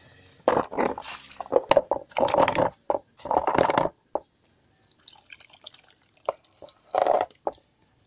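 Small steel brush scrubbing caked-on dirt off the wet plastic pulsator of a top-load washing machine, with water splashing and dripping. There are bursts of strokes in the first half, then sparser, quieter sounds with one more burst about seven seconds in.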